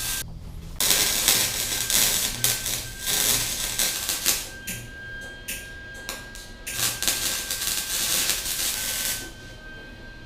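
Wire-feed welder arc crackling and hissing as a bead is laid, in several runs with brief breaks; the arc sputters on and off for a couple of seconds in the middle, which the welder puts down to a wire feed rate set too fast, and stops about nine seconds in.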